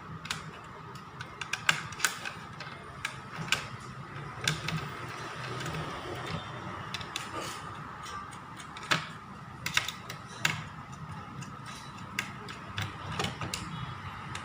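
Irregular small clicks and taps of tools and plastic and metal parts being handled while a laptop is taken apart.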